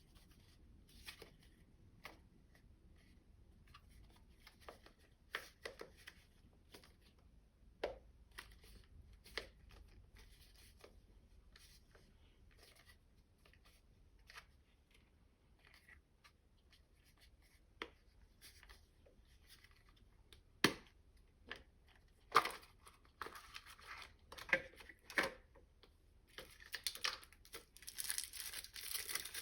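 Small L.O.L. Surprise doll packaging being handled and opened, heard as scattered light clicks and taps, with a few sharper snaps about two-thirds of the way through. Steady plastic crinkling and tearing builds near the end.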